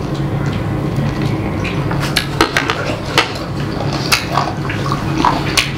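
Close-miked eating sounds: a mouthful of noodles being chewed, with scattered sharp clicks and taps.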